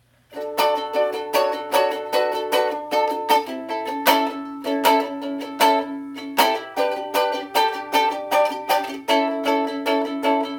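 Acoustic string instrument strummed by hand in a steady rhythm, with the chord changing every few seconds: the instrumental intro of a solo song cover, before the singing starts.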